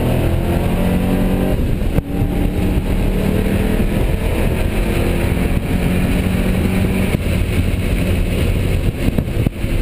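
1993 Ford Mustang's engine running hard on track, heard from inside the cabin along with road and wind noise. A sharp click with a brief drop in loudness comes about two seconds in.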